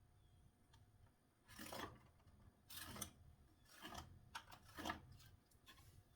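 Pencil scratching across a wooden board against a square, marking cut lines: four short strokes with a few small clicks between them.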